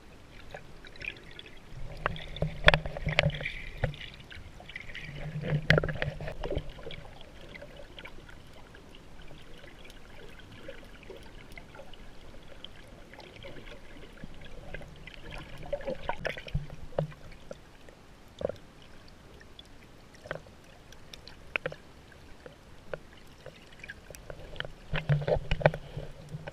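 Water sloshing and trickling while snorkeling, with many scattered small clicks and a few louder swells of splashing noise, about two, five and sixteen seconds in and again near the end.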